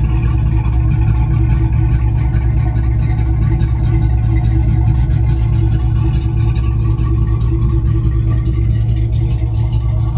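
The twin inboard engines of a Meridian 341 motor yacht idling steadily at the dock while they are flushed with fresh water after a run.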